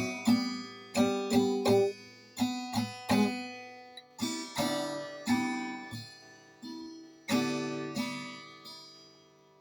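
Acoustic guitar strumming chords, each stroke ringing and fading; the last chord, a little past seven seconds in, rings out and dies away.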